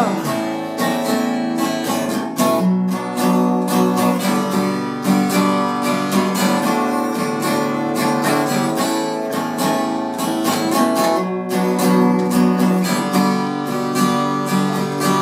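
Acoustic guitar strummed in a steady rhythm through a chord progression, an instrumental break with no singing.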